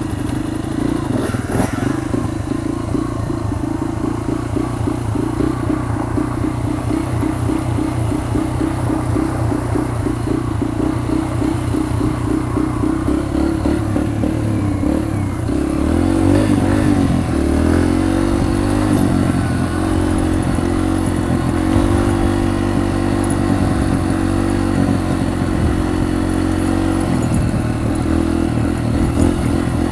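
Dirt bike engine running at low, steady revs, getting louder and changing pitch about halfway through as the throttle is opened.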